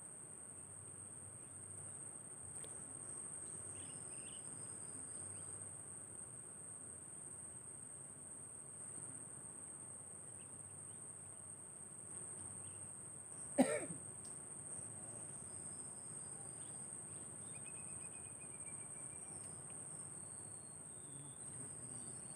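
Steady high-pitched buzz of insects, with a few faint short chirps. About fourteen seconds in, a single short cough stands out.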